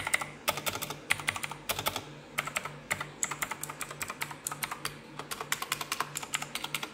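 Armaggeddon MKA-11R mechanical keyboard being typed on: rapid, sharp clicks of its blue switches in quick runs, with brief pauses between bursts.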